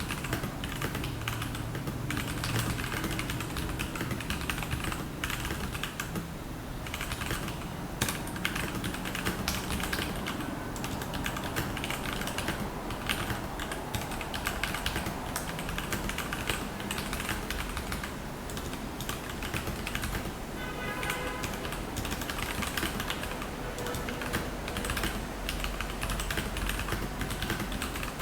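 Royal Kludge RK84 mechanical keyboard with stock linear Gateron Yellow switches and ABS double-shot keycaps, typed on continuously in quick, steady keystrokes.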